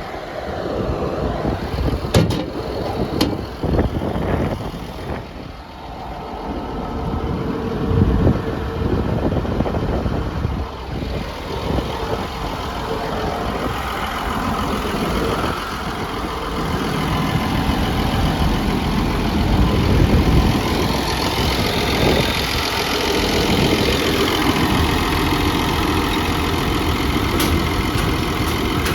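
Caterpillar D6N bulldozer's diesel engine idling steadily, with a couple of sharp clicks about two and three seconds in. The engine grows louder from about two-thirds of the way through.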